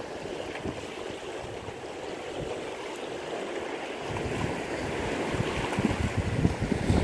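Wind buffeting the microphone over splashing water, the wind gusting louder about four seconds in. The splashing is a hooked striped bass thrashing at the surface.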